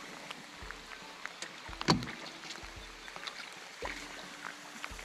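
Scattered clicks and knocks of gear handled against an aluminium boat's hull as a hooked bass is brought in and a landing net is picked up, over light rain noise; the loudest knock comes about two seconds in, another just before four seconds.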